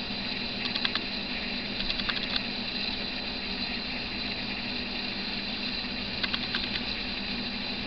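Steady hiss and hum of the camera's own noise, with short clusters of rapid clicking about a second in, around two seconds in, and again a little past six seconds.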